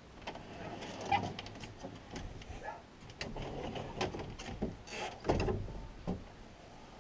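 Wooden louvered closet doors clicking and rattling as they are handled, with a low thump about five seconds in. A dog gives a short whine about a second in.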